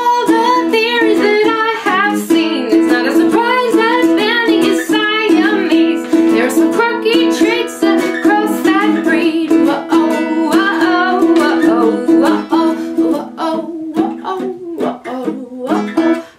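A woman singing a wordless 'whoa, oh' line over a strummed ukulele. After about thirteen seconds the voice drops away and the strumming thins to sparser strokes, with the level falling as the song winds down.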